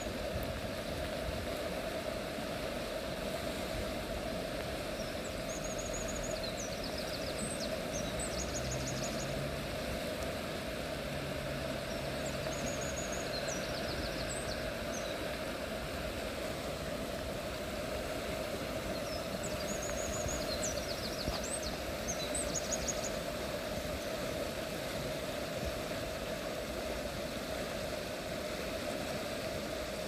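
Steady rushing of a fast-flowing river. A small bird breaks in with short, high trills several times, around a quarter of the way through and again about two thirds of the way through.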